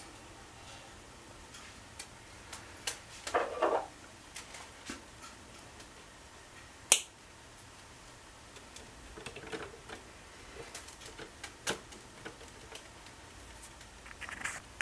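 Scattered small clicks and brief rustles of hands tying a knot in fishing line at a cuckoo clock, with one sharper click about seven seconds in.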